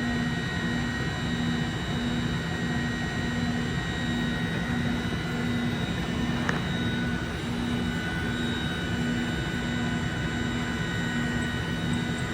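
Okuma Genos M560-V vertical machining center's spindle running steadily at about 10,000 RPM: a steady high whine over machine hum, with a low tone pulsing on and off about once a second. There is a single faint click about halfway through.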